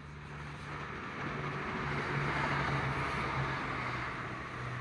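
CrossCountry Class 170 Turbostar diesel multiple unit passing at speed: a low diesel engine drone under the rush of wheels on rail. It grows louder as the train approaches and peaks about halfway through.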